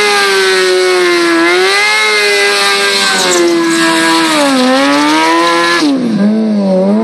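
Sport bike engine held at high revs during a stationary rear-tyre burnout. The pitch stays high and dips slightly twice, then falls sharply near the end as the throttle is eased and picks up again.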